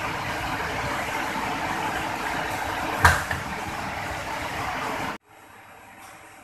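Steady whirring hum from the powered-up control cabinet of a Barudan embroidery machine, with one sharp click about three seconds in. Just after five seconds the sound cuts off abruptly to a much quieter hum.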